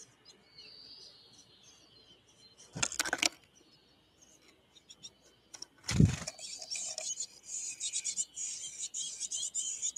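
A sharp clatter of clicks about three seconds in and a loud thump about six seconds in at a wooden birdhouse, followed by a fast run of high-pitched chickadee chirps and ticks.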